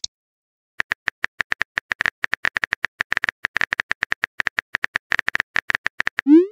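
Texting app's simulated keyboard tap sounds, rapid clicks at about ten a second as a message is typed, starting about a second in. Near the end a short rising swoosh plays as the message is sent.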